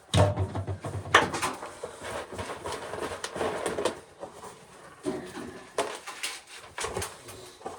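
Dried ears of corn being husked and shelled by hand: irregular rustling of dry husks and clicking, clattering kernels.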